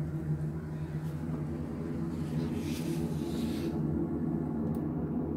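Steady low mechanical drone with several constant low tones, heard from inside a helicopter cockpit, with a brief rise of hiss about halfway through.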